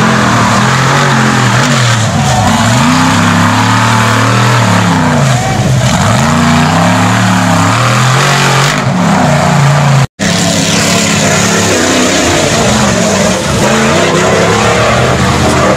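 Engines of lifted mud-bog trucks revving hard, the pitch climbing and falling again and again as the tyres churn through deep mud. The sound drops out for a moment about ten seconds in.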